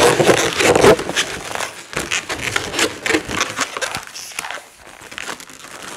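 Latex modeling balloons rubbing and squeaking against each other as one is twisted and wrapped into the figure: a run of short squeaks and crackles, loudest in the first second or two.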